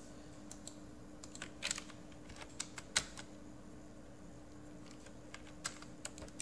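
Computer keyboard keys and mouse buttons clicking in irregular single taps. The clicks are heard as commands are typed and points are picked, the sharpest about three seconds in.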